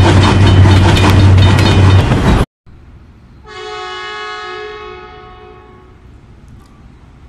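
A loud train running, with a steady low hum and a fast, regular clatter, cuts off suddenly about two and a half seconds in. About a second later a train horn sounds one chord for about a second and a half and fades away.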